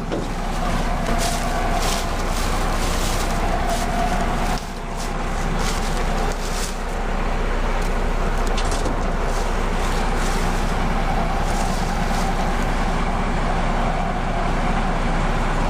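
Case IH 7130 combine running steadily, a constant mechanical hum with scattered clicks and rattles in the first half.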